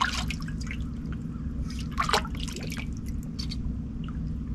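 Water dripping and trickling in short, scattered drops over a steady low hum, with a slightly louder splash about two seconds in.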